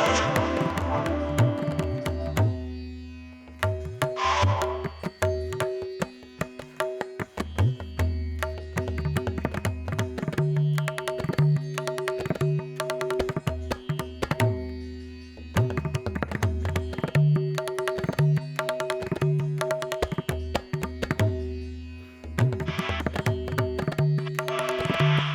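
Background music with Indian percussion: a rhythmic tabla-like pattern over sustained drone tones.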